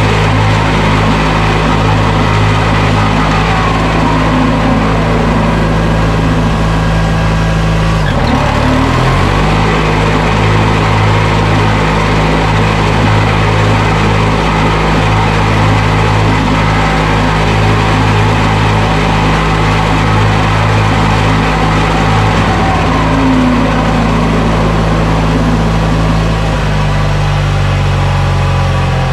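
Toro 616Z zero-turn mower's engine running steadily while the mower stands still, warming up after its first start of the year. Its note dips briefly about eight seconds in and shifts lower near the end.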